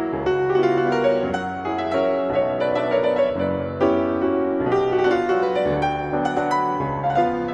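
Solo grand piano playing a waltz: bass notes under chords and a melody.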